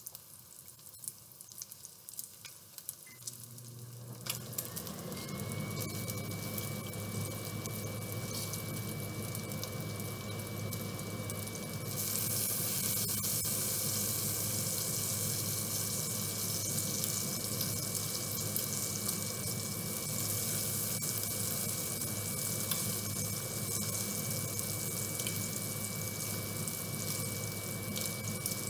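Bacon sizzling in a nonstick frying pan, with small clicks and scrapes as a fork turns the strips. A few seconds in, a kitchen exhaust fan starts up, adding a steady hum and a high whine that rises and then holds. The hiss grows louder about twelve seconds in.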